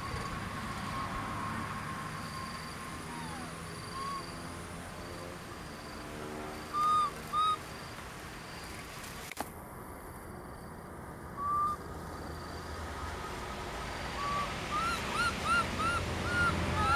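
Infant macaques giving short, high-pitched, arching calls, one at a time and in pairs at first, then a quick run of five or six near the end.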